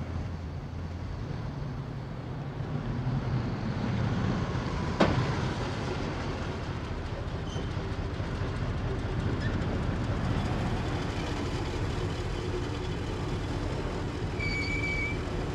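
Police van driving along a wet street: a steady low engine rumble with tyre noise on the wet road. One sharp knock about five seconds in, and a brief high tone near the end.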